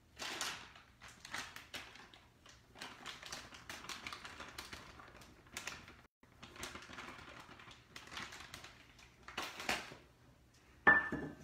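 Hands squishing and working a very soft, sticky bread dough in a stainless steel bowl, with a paper flour bag rustling: a string of irregular short rustles and scrapes. A little before the end a measuring cup knocks against the steel bowl in one sharp clink with a short ring.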